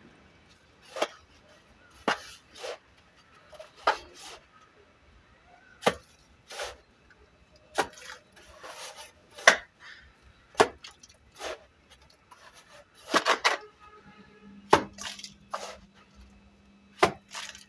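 Cement mortar being slapped onto a concrete pillar with a mason's trowel, with irregular sharp slaps and knocks a second or two apart. This is the plastering stage of a pillar repair over rusted reinforcement bars.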